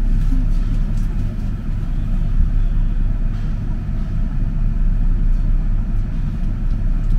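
Mitsubishi Crystal Mover light rail car running along its guideway: a steady low rumble of the rubber-tyred car and its running gear, heard from inside the car.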